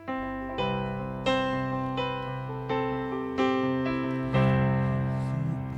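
Electric keyboard playing slow, sustained chords, a new chord struck about every three-quarters of a second.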